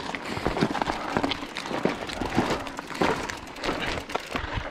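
Footsteps crunching on a stony trail, with the light rattle and knock of a mountain bike being pushed uphill over rocks. The crunches come irregularly, a few each second.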